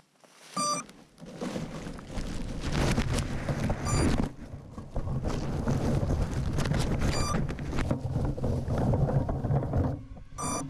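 A crashed FPV quadcopter beeping, with a short electronic beep about every three seconds, four times in all. Wind buffets the onboard camera's microphone throughout.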